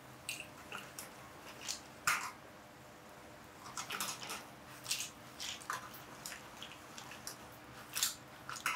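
Paccheri and shellfish in seafood sauce cooking in a steel frying pan over a gas flame, with irregular clinks and scrapes of shells and utensil as the pan is stirred and tossed. A faint steady hum runs underneath.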